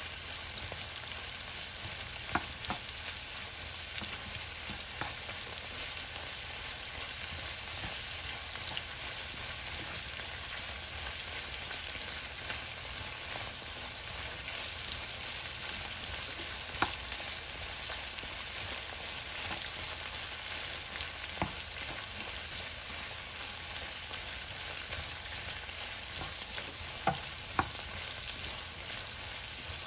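Vegetables sizzling steadily in a hot nonstick skillet while a wooden spatula stirs and turns them. There are a few sharp knocks of the spatula against the pan, several of them close together near the end.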